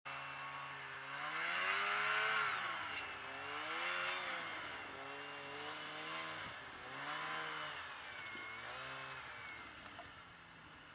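An engine running, its pitch rising and falling every second or two as it revs up and down, fading away near the end.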